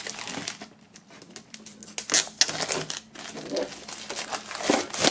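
Plastic shrink-wrap film being peeled and pulled off a metal tin box, crinkling in irregular bursts, loudest about two seconds in and again near the end.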